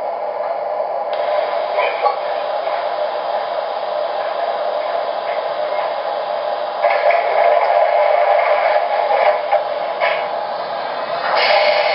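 An MTH Railking R-17 model subway train's ProtoSound 2.0 speaker playing the standing-train sound of a parked subway car: a steady whirring hum that grows louder about seven seconds in and again near the end.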